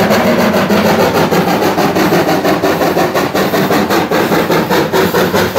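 RhB G 4/5 steam locomotive working, with a fast, even beat of about six strokes a second over a hiss of steam.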